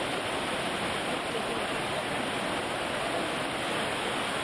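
Muddy floodwater rushing and churning in a torrent along a flooded street: a steady, unbroken rushing noise.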